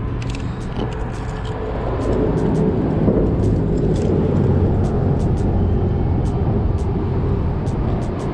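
Road traffic on the bridge overhead: a steady low rumble that grows louder about two seconds in and stays up, with faint small clicks throughout.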